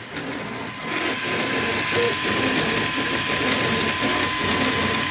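Small toy 3D printer running mid-print, its stepper motors whining in shifting tones over a steady tone. About a second in, a loud steady hiss comes in and stays.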